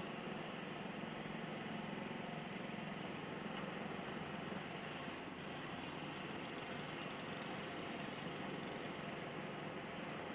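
A machine running steadily: a constant low hum with an even hiss over it and no distinct strikes or rhythm.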